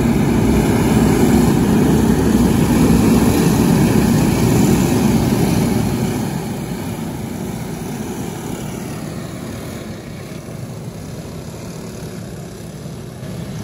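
A pack of Briggs & Stratton LO206 four-stroke racing kart engines running past together. It is loud for about the first six seconds, then drops to a quieter, steadier drone as the karts are farther off.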